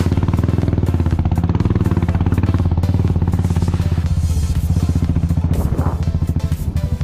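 Royal Enfield Bullet's single-cylinder engine running steadily at low revs with a rapid, even exhaust beat, pulling in first gear up a rough, rocky track.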